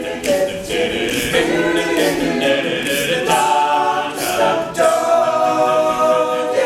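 Male a cappella group singing in close harmony, several voices holding and shifting chords together.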